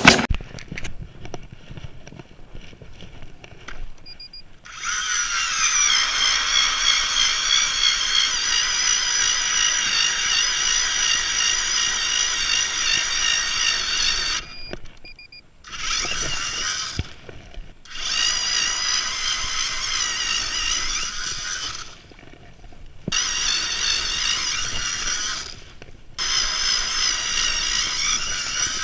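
Power ice auger drilling through lake ice, a steady high motor whine. It starts about five seconds in and runs for about ten seconds, then in four shorter runs with brief stops between.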